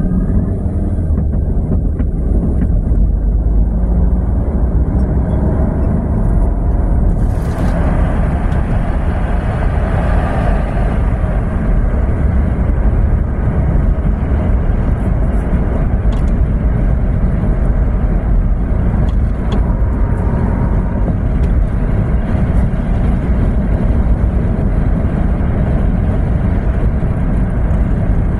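Car driving on a multi-lane road, heard from inside the cabin: a steady, loud low rumble of road and engine noise. A brief louder rush comes about eight seconds in.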